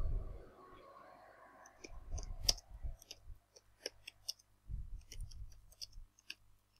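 Computer keyboard typing: quick, irregular keystroke clicks as a line of text is typed, with a few low thuds in between.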